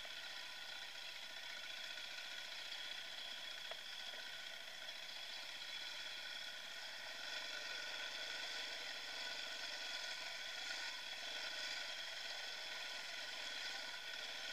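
Dirt bike engine running at steady revs while riding singletrack, a steady high-pitched engine whine with little bass, getting slightly louder about halfway through.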